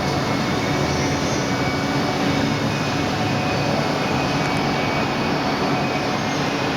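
Mikron HSM 600 U five-axis high-speed milling machine running: a steady mechanical noise with a faint high whine that comes and goes.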